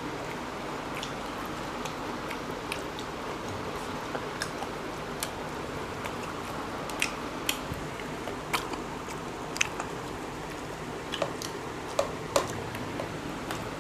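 Two people eating rice and chicken curry by hand: chewing and biting, with short sharp clicks scattered through, more of them in the second half, over a steady hiss.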